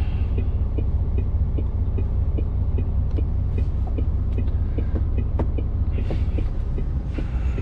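Articulated lorry's diesel engine idling, a steady low hum and throb heard from inside the cab, with faint light ticking over it.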